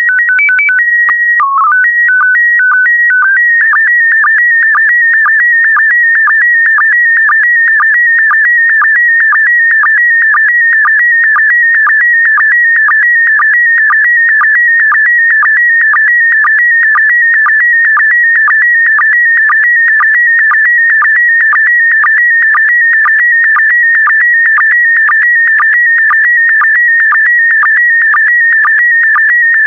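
Slow-scan TV (SSTV) picture transmission in PD120 mode. It opens with a short header of steady beeps at a few different pitches about three seconds long, then turns into a continuous electronic warble near 2 kHz with a regular dip about twice a second as the image lines are sent.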